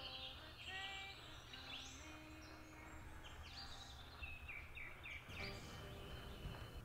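Faint woodland birdsong: several birds chirping and trilling, with quick rising and falling notes, over a low steady rumble.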